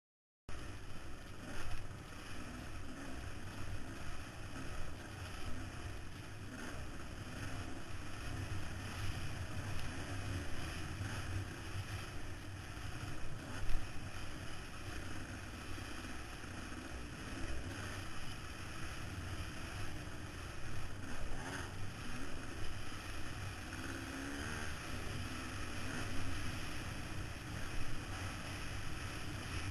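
Off-road racing motorcycle running hard at speed, heard through heavy wind rush on a helmet-mounted camera, with a few sharp knocks from the rough ground, the loudest about two-thirds of the way through. The sound cuts in abruptly about half a second in.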